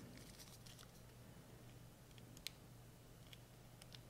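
Near silence: room tone with a faint steady hum and a few light clicks, the clearest about two and a half seconds in.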